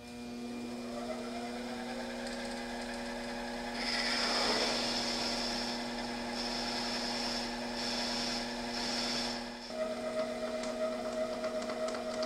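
Small benchtop lathe motor coming up to speed and running with a steady hum. From about four seconds in to nearly ten seconds in, a cutter fed from the tailstock cuts through the plastic fan hub spinning in the chuck, giving a high-pitched cutting whine in several spells over the hum.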